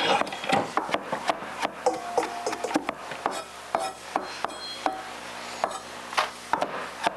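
Chef's knife chopping lemon zest on a wooden cutting board: a run of irregular sharp taps of the blade against the wood.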